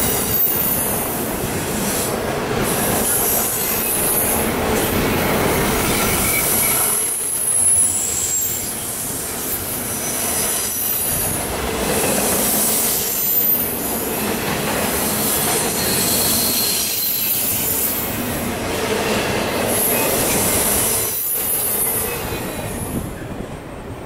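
Double-stack intermodal well cars of a freight train rolling past close by, with a steady rolling clatter of wheels on rail and high-pitched wheel squeal that comes and goes. The sound drops away near the end as the last car passes.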